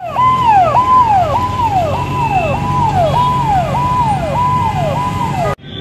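Fire engine siren sounding a repeated falling note, almost two cycles a second, over the truck's running engine. It cuts off suddenly near the end.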